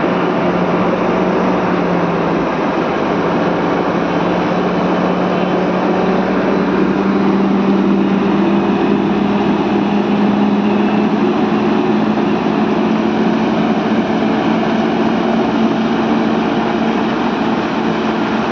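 Heavy diesel truck engines pulling hard on a very heavy load as a long multi-axle modular trailer rolls slowly past, tyres rumbling on the road. The steady engine drone rises slightly in pitch about two seconds in and then holds.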